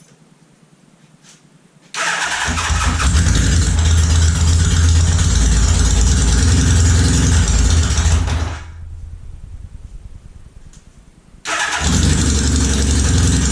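Kawasaki KZ550 air-cooled inline-four motorcycle engine fitted in a lawn mower, starting up abruptly about two seconds in and running loudly and steadily. It dies away about two-thirds of the way through, then starts again and runs near the end.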